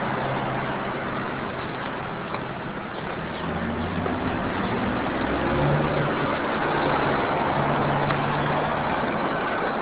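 Street traffic: a motor vehicle engine running close by over general road noise, growing louder about three seconds in.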